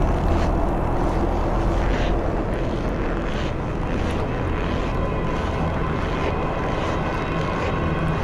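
Dark ambient soundtrack drone: a deep steady rumble with held tones and a wind-like hiss that swells softly now and then.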